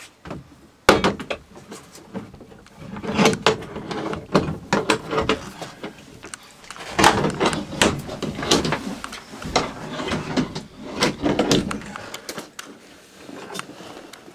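Repeated knocks, clunks and rustling of things being handled in a small sailboat cabin, with a sharp knock about a second in.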